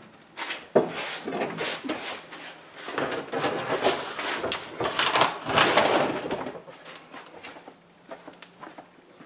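Grass collector of a Craftsman T3000 lawn tractor being unhooked and lifted off, with a run of clunks, knocks and rattles of its frame and bin. About six and a half seconds in the handling stops, leaving only a few faint ticks.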